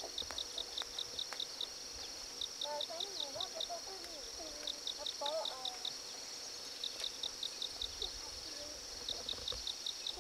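Insects in the field: a steady high-pitched drone, with short runs of rapid chirps over it every two seconds or so.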